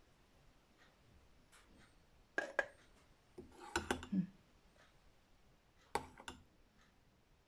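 A metal spoon clinking and scraping against a blender jar as thick homemade mayonnaise is scraped out into a bowl. The sharp clinks come in three clusters, about two and a half, four and six seconds in.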